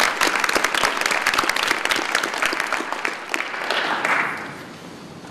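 Audience applauding, a dense patter of hand claps that thins out and dies away about four seconds in.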